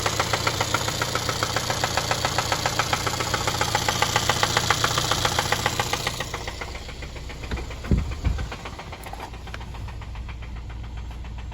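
Mercedes-Benz M270 2.0-litre four-cylinder engine running with a rapid, even knocking over its idle, the knock the owner is recording. About six seconds in the knocking fades and the engine runs quieter, with two heavy thumps about eight seconds in.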